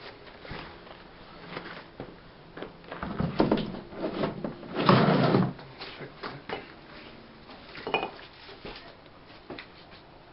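Wooden kiln arch form being handled and set down: a run of wooden knocks and scraping clatters, loudest in the middle, with another short clatter about eight seconds in.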